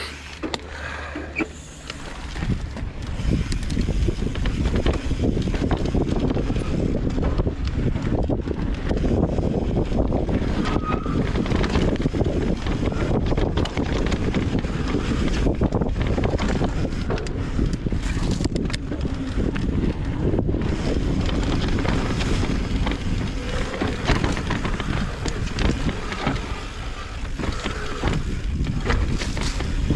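Wind rushing over the microphone of a riding mountain bike, with the knocks and rattles of the bike on a rough dirt trail; it gets louder about two seconds in.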